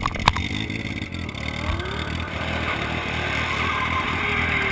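BMW S1000RR sport bike's inline-four engine idling steadily at a standstill. Two sharp knocks right at the start.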